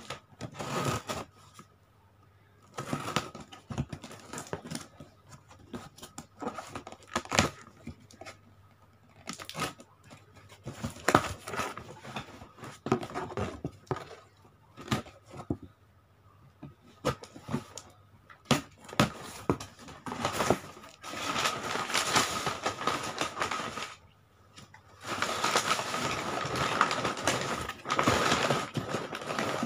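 Scissors slitting the packing tape on a cardboard shipping box, with tape tearing and cardboard flaps scraping and rustling as the box is worked open. The tearing and rustling run denser and longer over the last third.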